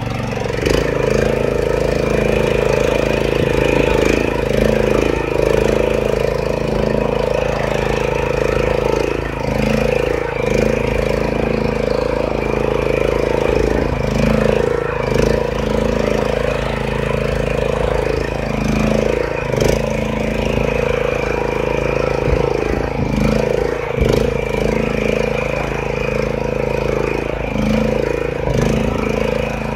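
Hyundai walk-behind rotary tiller's engine running steadily under load as its tilling blades churn through the soil, its note wavering every few seconds.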